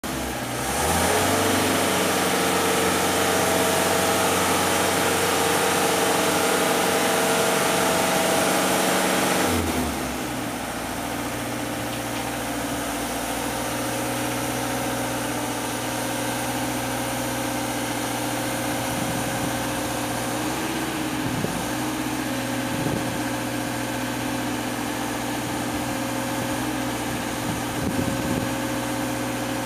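Engine of a JLG 800AJ articulating boom lift running while the boom is worked from the basket: it revs up about a second in and holds a higher speed, then drops back to a lower steady speed about ten seconds in.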